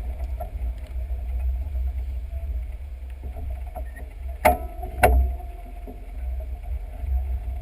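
Wind buffeting the microphone of a camera mounted on the outside of a moving Island Line train (ex-London Underground 1938 tube stock), a steady low rumble with a faint running whine. About halfway through, two sharp knocks half a second apart, typical of the wheels of one bogie going over a rail joint.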